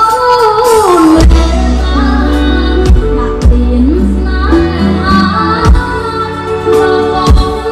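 A boy singing a slow song into a microphone with a live band behind him: steady bass notes and drum hits under the sung melody.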